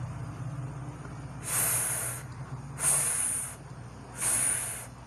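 A woman sounding the voiceless /f/ of the letter F three times: short breathy hisses of air pushed between her upper teeth and lower lip, each about half a second long and a little over a second apart.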